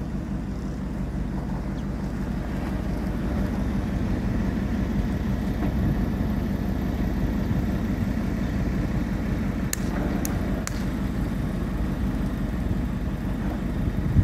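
Strong wind buffeting the microphone: a steady low rumble, with a few faint ticks about ten seconds in.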